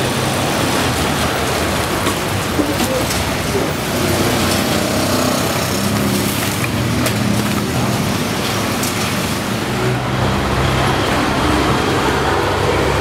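Busy street ambience: steady traffic noise with vehicle engines passing and indistinct voices, broken by a few light knocks. An engine grows louder about ten seconds in.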